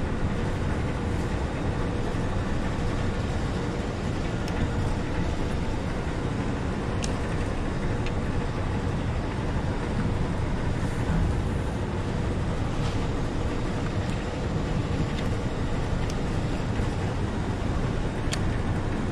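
Small fishing boat's motor running steadily at low speed, a low rumble with a faint steady hum over it. A couple of faint ticks come through, one about seven seconds in and one near the end.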